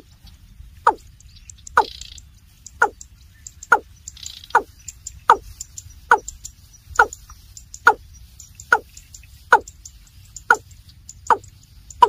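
Water cock (Gallicrex cinerea) calling: a steady series of about a dozen deep notes, each falling sharply in pitch, a little faster than one a second.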